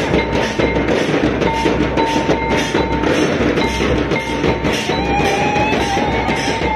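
Dance music: a frame drum beaten in a steady fast rhythm, about three or four strokes a second, with a high held melodic tone over it that wavers and slides about two thirds of the way in.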